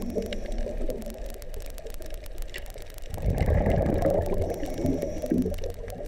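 Underwater sound on a coral reef: a dense crackle of small clicks over a low rumbling wash of water noise, growing louder from about three seconds in.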